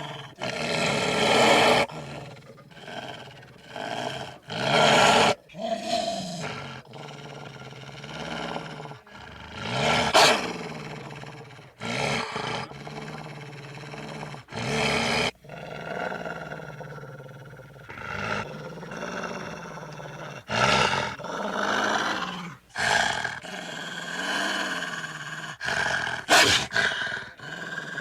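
A run of wolf growl and snarl sound effects, one short clip after another with abrupt cuts between them.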